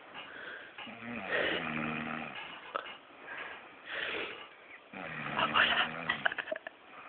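Deep snoring in sound sleep: two long, pitched snores about four seconds apart, each with a slightly falling drone, and a shorter breathy snore between them.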